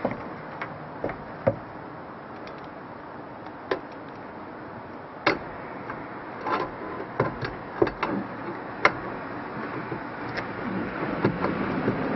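Scattered metallic clicks and knocks as a sliding-bar steering wheel puller is fitted onto the wheel hub, with denser clicking and scraping over the last couple of seconds.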